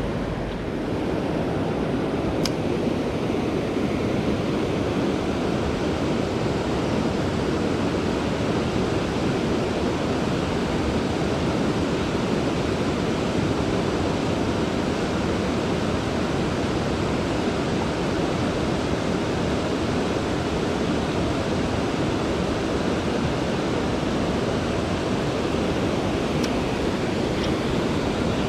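Steady rushing of a mountain river's flowing water, with a few faint clicks.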